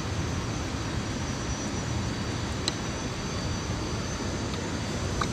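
Steady rushing noise of a river's rapids, even and unbroken, with one faint click about halfway through.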